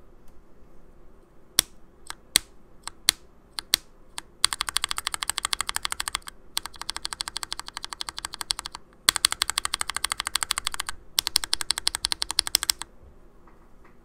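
Mechanical keyboard with lubed Akko CS Ocean Blue tactile switches: a few single keystrokes, then rapid typing in four bursts of quick clacks.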